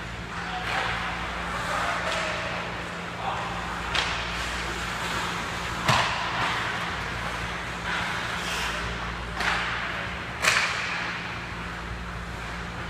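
Ice hockey skates scraping and carving on the ice in repeated short hisses, with sharp clacks of sticks and puck, the loudest about six seconds in and again near ten and a half seconds, over a steady low hum.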